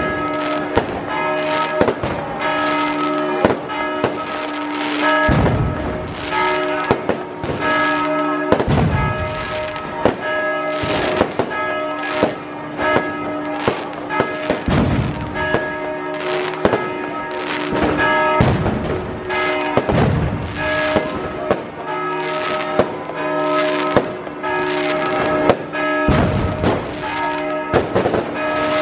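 Church bells ringing continuously while fireworks and firecrackers go off, with a sharp bang every second or so and heavier booms every few seconds: the midnight Resurrection celebration of Greek Orthodox Easter.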